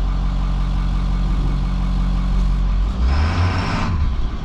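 Short school bus's diesel engine idling steadily. About three seconds in, the engine note changes and a hiss lasting about a second comes in.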